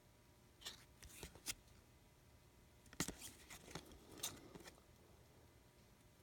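Trading cards being flipped through by hand: faint, scattered flicks and rustles, the sharpest about three seconds in.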